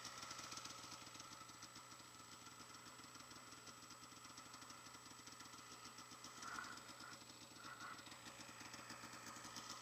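Snowmobile engine running steadily, faint and muffled, with two short higher-pitched notes past the middle.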